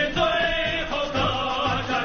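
Background music: a choir singing with sustained, held notes.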